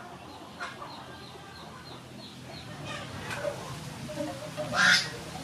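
Chickens clucking, with one loud, sharp call about five seconds in. A quick, high chirping, about five notes a second, runs through the first half.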